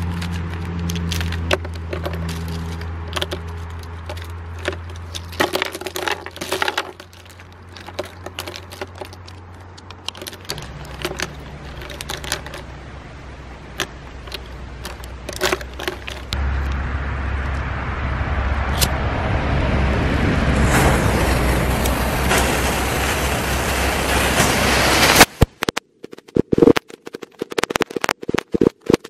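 Plastic disposable lighters clicking and clattering against each other as they are set down on a firecracker mat. Then a hiss grows steadily louder for several seconds, and a few seconds before the end a string of firecrackers starts going off in rapid sharp bangs.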